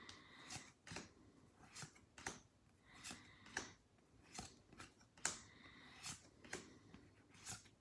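Faint, irregular snaps and light swishes of Pokémon trading cards being slid one by one from the back of a small stack to the front by hand, about a dozen in all.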